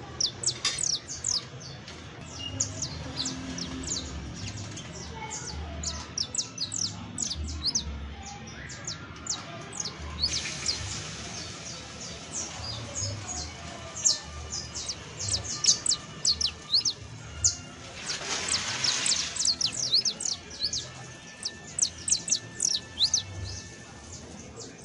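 Saffron finch (Sicalis flaveola) singing continuously: a rapid stream of sharp, high chirps that each slide down in pitch, broken by a harsher, buzzy stretch about ten seconds in and another at about eighteen seconds.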